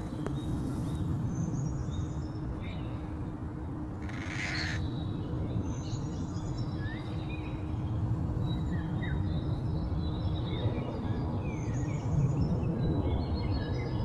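Marsh ambience: scattered short bird chirps and one brief harsh call about four seconds in, over a steady low rumble with a faint steady hum.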